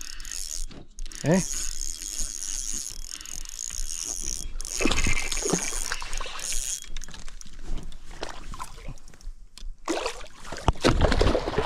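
A hooked largemouth bass splashing at the water's surface while it is reeled in on a spinning reel. The splashing and thrashing are loudest near the end, as the fish is brought into the shallows.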